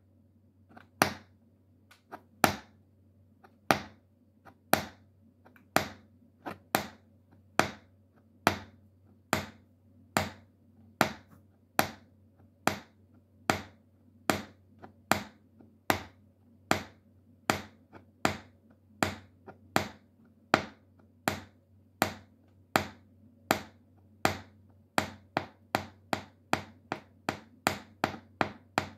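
Metal shoe taps clicking against a hard floor: single sharp taps in an uneven rhythm, about one to two a second, coming faster near the end.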